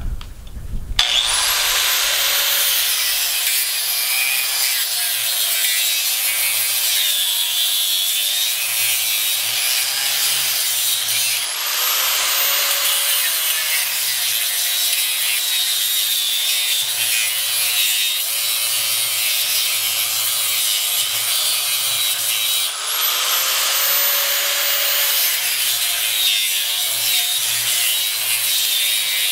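Corded angle grinder with a cutoff wheel starting up about a second in and cutting through the end windings of an air conditioner fan motor's stator: a high whine over a steady grinding hiss. Twice more the whine climbs as the wheel speeds back up.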